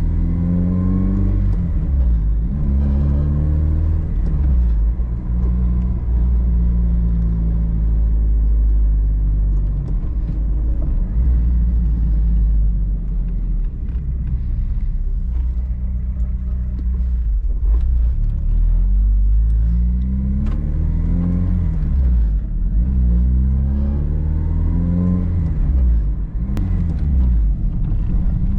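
Honda Civic Si engine pulling through the gears: the engine note climbs and drops back at each upshift, several times near the start and again in the second half, with a steadier cruising stretch in between.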